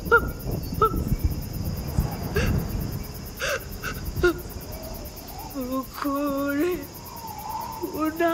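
Night ambience with a steady high insect drone, short animal or bird calls in the first few seconds, and longer pitched calls that step and waver from about two-thirds of the way in.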